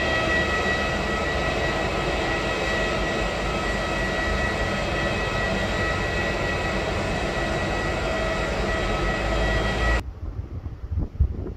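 Steady whine and rush of a jet airliner parked at the gate, a few fixed whining tones over an even roar. About ten seconds in it cuts off abruptly, leaving only faint wind on the microphone.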